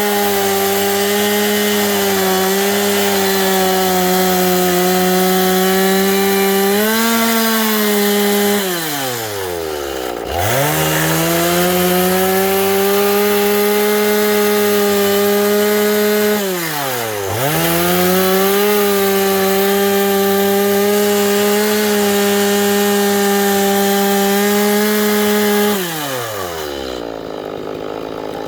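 Chainsaw running at high revs while milling a cedar log, with the chain cutting through the wood. Three times the engine drops quickly toward idle and revs back up, the last drop about two seconds before the end.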